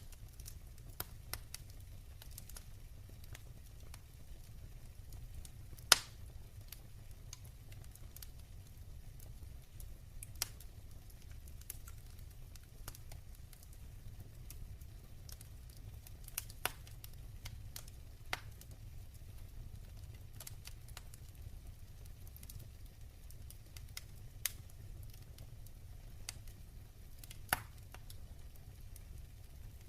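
Wood fire burning in a fireplace: a steady low rumble of flames with scattered sharp crackles and pops, the loudest about six seconds in.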